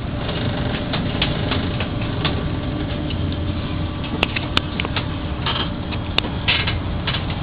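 Ship's engine giving a steady low drone with a faint hum, overlaid by scattered rattles and a few sharp clicks in the second half.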